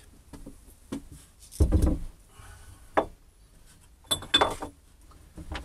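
Objects being handled and set down on a wooden workbench: a heavy thump about one and a half seconds in, single knocks, and near four seconds a couple of clinks that ring briefly.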